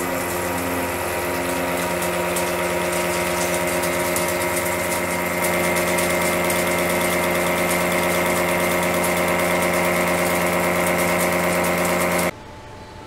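R335.25 disc milling cutter slotting a steel block: a loud, steady machining hum with several fixed tones under a high hiss, cutting off suddenly about twelve seconds in.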